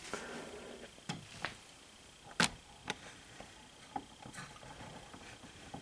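A few scattered knocks and clicks, with light rustling, as a heavy leather hunting boot (Danner Powderhorn) is handled and set down on a plastic digital kitchen scale on a wooden desk. The sharpest knock comes about two and a half seconds in.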